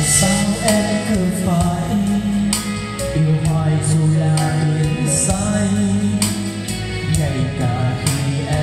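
A man singing a Vietnamese song into a wireless karaoke microphone over a backing track, both played through an NT 1508 portable trolley speaker with twin 40 cm woofers.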